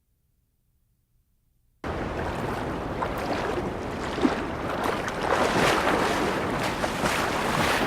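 Silence for about two seconds, then a steady wash of sea surf and wind.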